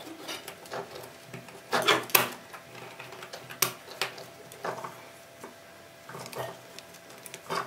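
3D-printed plastic motor holders and chassis rails of a model truck being handled and fitted together, giving scattered sharp plastic clicks and knocks, with the loudest cluster about two seconds in.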